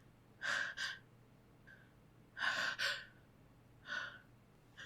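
A woman's quick, breathy catches of breath, two pairs and then a single, as a sneeze builds without coming.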